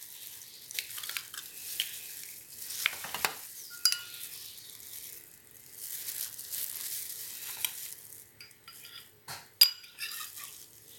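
An egg being opened into a drinking glass: scattered light taps and scrapes of shell and a spoon against the glass, with a short ring near 4 s and a sharp clink near the end.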